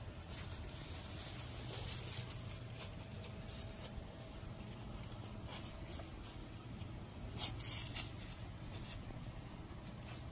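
A Dalmatian puppy rustling through clumps of grass and digging in the dirt: scratchy rustling and scraping in irregular bursts, loudest about two seconds in and again near eight seconds.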